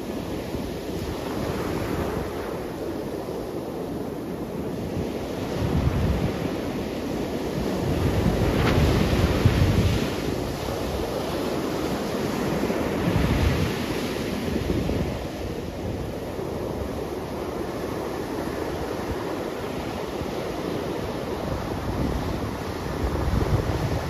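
Ocean surf breaking and washing up a sandy beach: a continuous rushing hiss that swells with heavier breaking waves about six, nine and thirteen seconds in and again near the end. Some wind noise on the microphone.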